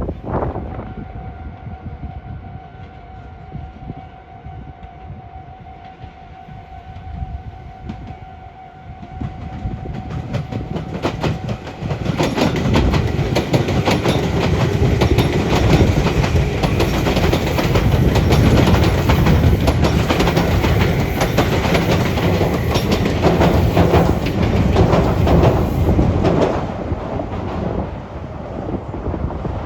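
Meitetsu electric train passing over the junction points, its wheels clattering rhythmically over the rail joints and switch frogs. The clatter swells about twelve seconds in, stays loud for about fourteen seconds and fades near the end. Before it, a steady high tone sounds for about the first eleven seconds over a low rumble.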